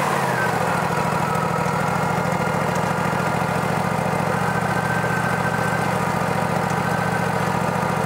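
Engine idling steadily, with a faint higher whine that drops a little in pitch just after the start.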